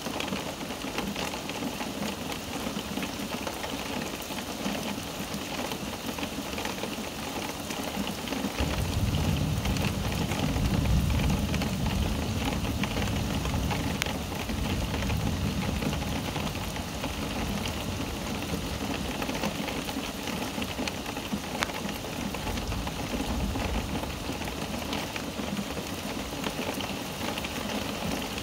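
Steady rain falling during a thunderstorm. A low rumble of thunder starts suddenly about a third of the way in, swells for a few seconds and dies away slowly.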